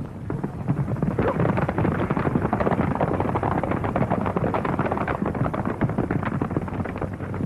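Hoofbeats of several horses galloping, a dense fast clatter that cuts off suddenly near the end.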